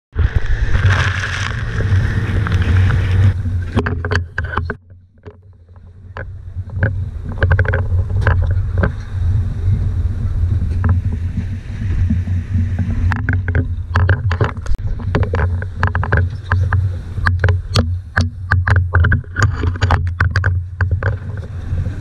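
Outboard motor of a small open dive boat running steadily, with a wash of spray and wind over the first few seconds. Frequent sharp knocks and clatters sound over the engine as the boat rides the surf; the sound dips briefly about five seconds in.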